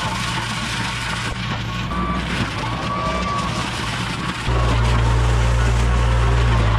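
Compact tractor engine running under load while its front mulcher grinds brush. About four and a half seconds in, the sound changes abruptly to a louder, closer Kubota tractor engine running steadily.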